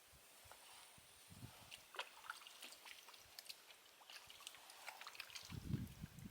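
Faint water dripping and small splashes, with a scatter of light clicks and a low dull thump near the end.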